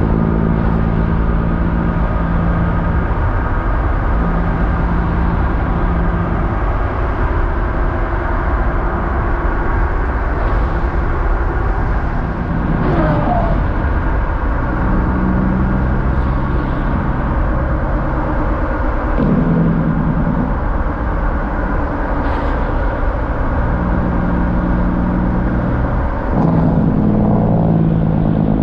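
Steady engine and road noise of a vehicle driving along a road, its low hum stepping up and down in pitch several times.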